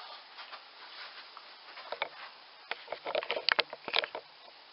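A person getting up and moving close to the microphone: faint rustling, then a quick cluster of sharp clicks and knocks about three seconds in.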